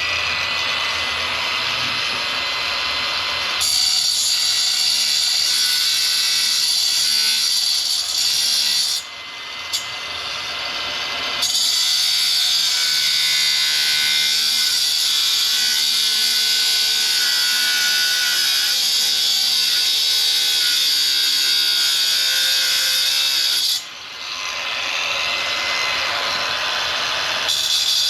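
Cordless angle grinder with a cutoff wheel cutting steel angle iron: a steady high grinding hiss. It eases off briefly about nine seconds in and again near the end, then bites back in.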